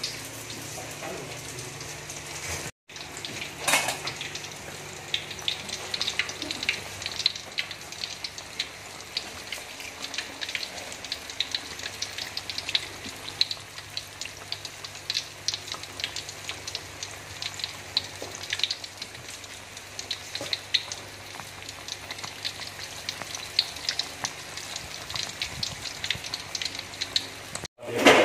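Batter-coated kepok banana fritters frying in hot oil in a steel wok, sizzling with a dense, continuous crackle of small pops. A louder crackle comes about four seconds in.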